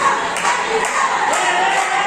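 Wrestling crowd shouting and cheering, many voices at once, with one voice holding a long shout a little past halfway.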